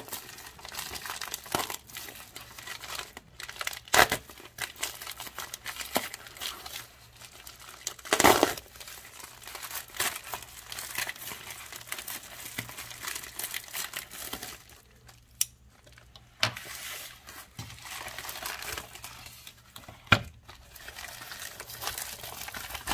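Plastic poly bubble mailer being torn open by hand, its plastic shell and bubble-wrap lining crinkling and rustling. Several sharp ripping sounds stand out, the loudest at the start and about eight seconds in.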